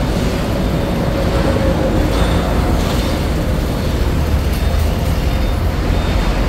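Steady road traffic noise with the low rumble of diesel trucks running close by.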